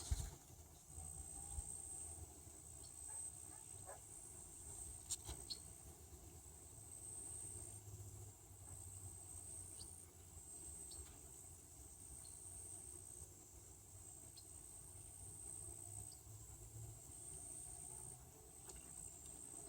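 A high-pitched insect chirping in short repeated phrases over faint outdoor background noise, with a few faint clicks.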